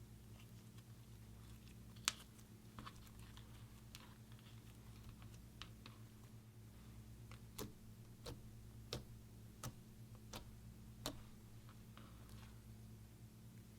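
Faint clicks and small pops of slime being pressed and stretched by hand, over a steady low hum. About halfway through, the clicks come at a fairly even pace, roughly one every second or less.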